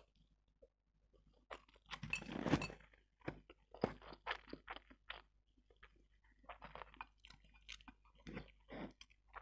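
A person slurping and chewing jajangmyeon, wheat noodles in black bean sauce, with a string of short wet chewing smacks. There is a louder slurp about two seconds in.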